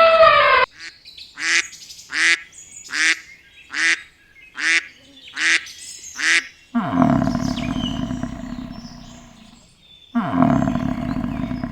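Animal calls: a string of seven short calls evenly spaced under a second apart, then two long, loud calls of about three seconds each.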